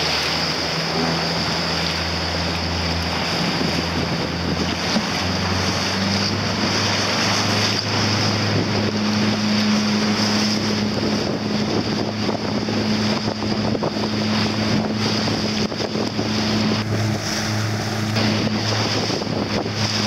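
Wind buffeting the microphone and water rushing past a moving boat, over the steady hum of the boat's engine, which steps up in pitch about five or six seconds in.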